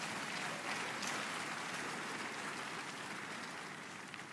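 A congregation applauding, a dense patter of clapping that swells and then dies away near the end.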